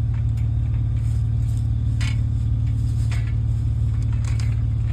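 Vehicle engine idling steadily, with a few light clinks and knocks scattered over it.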